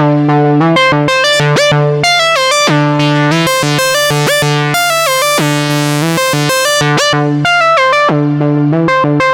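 Moog Sub 37 analog synthesizer playing an arpeggio patch, with quick repeated short notes that slide up into pitch over a held low note. The sound turns brighter around the middle, and the notes trail off through reverb.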